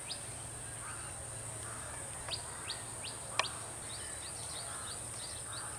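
Outdoor ambience of small birds chirping with short, quickly falling notes, several in a row, over a steady high-pitched whine and faint distant voices. A single sharp click about three and a half seconds in is the loudest sound.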